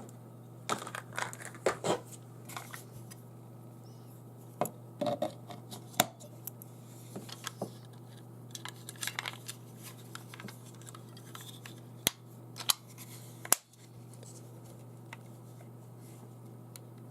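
Batteries being fitted into a plastic infrared thermometer's battery compartment: scattered small clicks, scrapes and rattles of handling, with several sharper clicks in the second half, over a faint steady hum.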